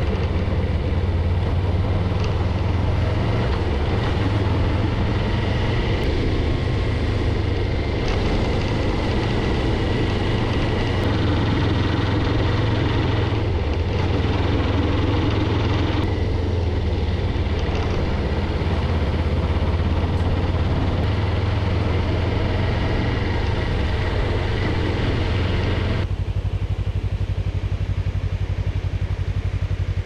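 Engine and road noise of a vehicle driving along, a steady low drone with hiss above it; near the end the hiss drops away and only the engine's low hum remains.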